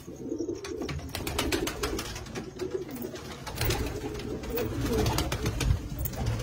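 Domestic pigeons cooing, a low wavering coo that runs on throughout. Scattered sharp clicks and rustles come through in the first half, and a low rumble joins from about halfway.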